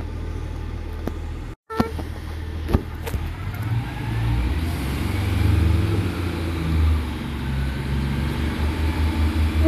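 A Class 142 Pacer diesel multiple unit's underfloor diesel engines pulling away from a station, the rumble growing louder with a rising whine from about four seconds in. A couple of sharp clicks come about two and three seconds in, and the engine settles into a rhythmic throb near the end.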